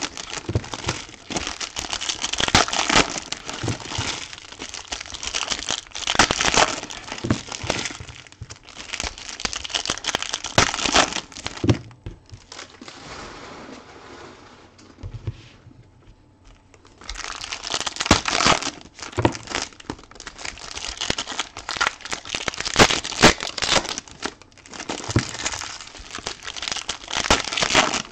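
Foil trading-card pack wrappers being torn open and crinkled by hand in a dense run of crackling. A quieter stretch of several seconds falls in the middle, then the crinkling starts again.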